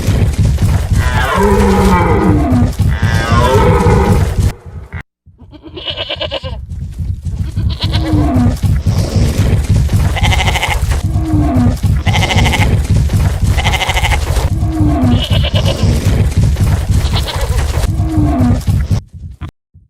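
Herd stampede sound effect: a dense, continuous low rumble of many pounding hooves. Over it come long, falling bellowing calls, then after a brief break about five seconds in, repeated goat bleats every second and a half to two seconds.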